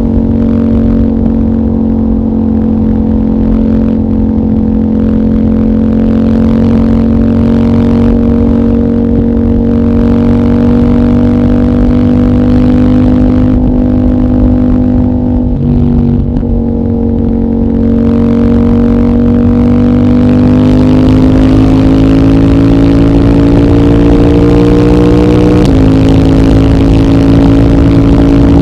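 CFMOTO 800NK's 799 cc parallel-twin engine, decatted with the stock muffler, running steadily under load, its pitch climbing slowly as the bike gathers speed. About halfway through the note breaks briefly and drops, like a quick upshift, then climbs again, and near the end there is another small step in pitch.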